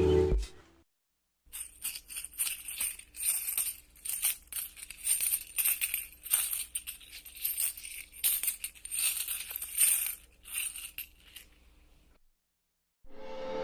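Coins jingling and clinking together in irregular shakes for about ten seconds, with bright metallic chinks.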